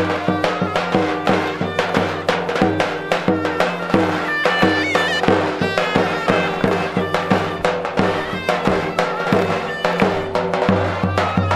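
Turkish traditional folk music: a reedy wind-instrument melody over held low notes, with quick, steady drum beats throughout.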